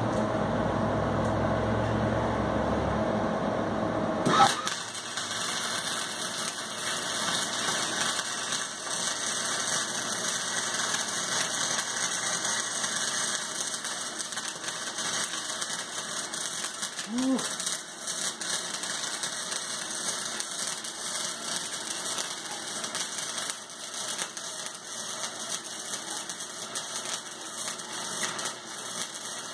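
Stick-welding arc crackling and sizzling steadily as a bead is run on steel, striking about four seconds in after a low hum.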